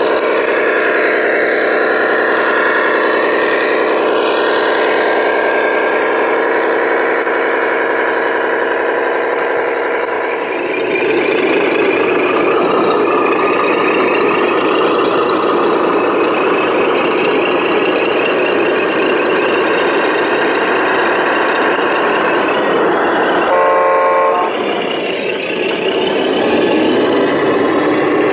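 Radio-controlled model trucks running with a steady diesel-engine note from their sound units, which turns rougher and noisier about ten seconds in. A truck horn sounds once for about a second near the end.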